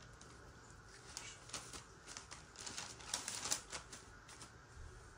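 Baking paper crinkling and crackling in quick, irregular little bursts as hands press and spread a ball of pide dough on it. The crackles are busiest in the middle and thin out near the end.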